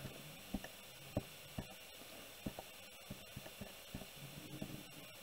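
Faint, irregular clicks of keys being pressed on a Casio fx-115 scientific calculator, about twenty presses as a sum is keyed in.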